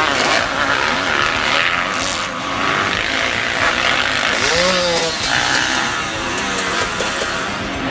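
Several off-road dirt bike engines revving, their pitch rising and falling unevenly.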